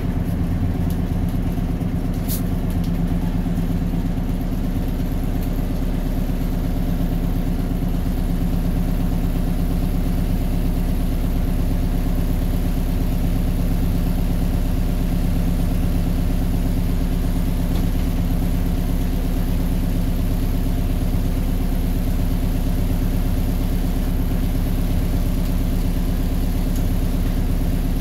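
Straight-piped Detroit Diesel 8V71 two-stroke V8 idling steadily, heard from inside the cab of a 1973 GMC Astro cabover.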